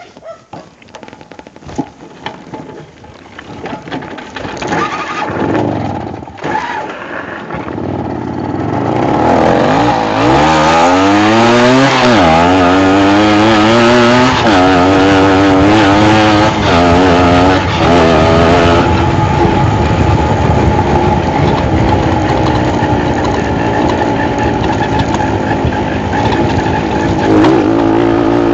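Tomos moped's small two-stroke engine being ridden hard: fainter with rattles at first, then from about nine seconds in it revs loudly, its pitch rising and falling several times, before settling into a steady high-revving run.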